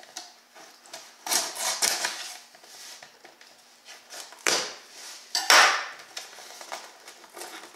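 Kitchen knife slicing the packing tape on a cardboard box, with the box being handled on a wooden table. There are several short scraping rips, and the loudest comes a little past halfway.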